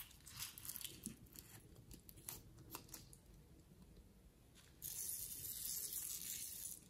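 Scissors snipping and fingers handling a rubber balloon: scattered small clicks and crackles, then a steady hiss for about two seconds near the end.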